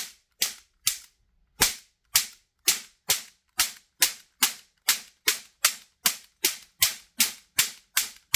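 1950s toy cap pistol firing a roll of paper caps shot after shot, about two sharp bangs a second, around twenty in all, the lever-fed roll advancing a fresh cap with each trigger pull.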